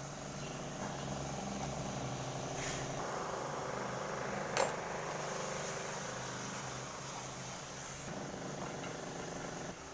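A steady mechanical hum, with a single sharp click about halfway through.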